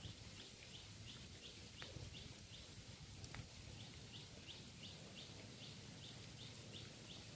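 Faint outdoor background with a small animal's high chirp repeating steadily about three times a second, and two faint clicks.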